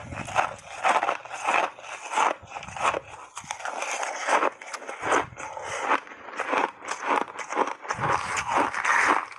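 Close-up crunching and chewing of refrozen ice chunks coated in matcha tea and milk powder: many quick, irregular crunches as the ice is bitten and ground between the teeth.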